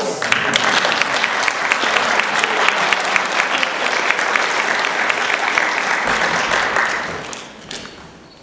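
Congregation applauding: dense hand-clapping that starts at once and dies away about seven seconds in.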